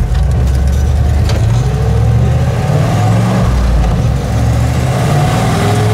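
Turbocharged Suburban's engine revving under load while the truck is stuck in snow on ice and will not move. A whine rises in pitch twice, about a second and a half in and again near the end.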